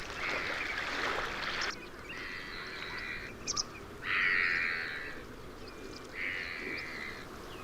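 Waterbirds calling at a wetland: three harsh, raspy calls, the loudest about four seconds in. A brief rushing noise comes before them at the start.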